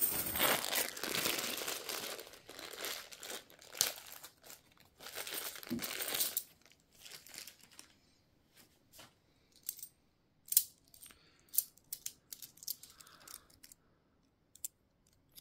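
A plastic coin bag crinkling as it is handled for about six seconds, then scattered sharp clicks of 50p coins being picked up and set down, the loudest about ten and a half seconds in.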